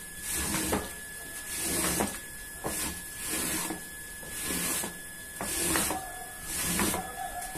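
Rubber floor squeegee dragged back and forth over a soaked, soapy rug, each stroke a wet swish and rub, roughly once a second, over a faint steady high whine.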